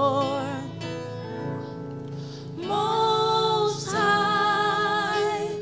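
Gospel worship song: voices holding long sung notes over an instrumental backing. The singing dies down about a second in, leaving a quieter held chord, and the voices come back strongly about halfway through.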